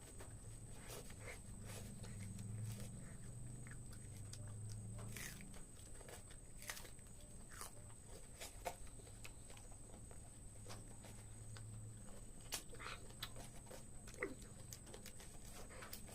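A person eating raw green chili and tomato: irregular bites, crunches and wet mouth clicks, over a steady low hum.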